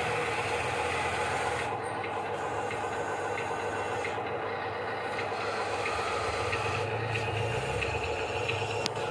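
An RC construction model running, a steady mechanical whir with a few faint ticks.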